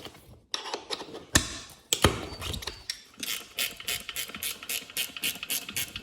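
Motorcycle tire bead being broken off the rim with a lever bead-breaker tool. There are a few sharp metallic knocks, then a rapid run of ratchet-like clicks, about three a second, through the second half.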